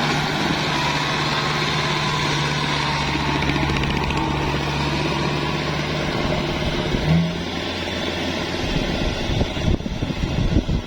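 Farm machine engine running steadily, with a brief rise in pitch about seven seconds in, then going rougher and more uneven near the end.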